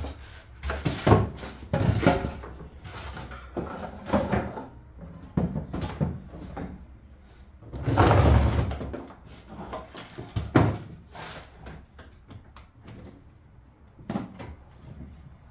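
Clatter of things being handled and set down on a concrete floor: a plastic tool case and polystyrene foam boards knocked, scraped and shifted, in a string of separate knocks. A longer, louder scrape and rustle comes about eight seconds in.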